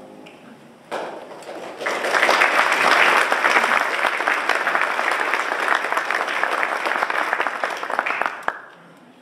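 Audience applauding, starting about a second in, swelling to full strength a second later, then stopping fairly abruptly near the end.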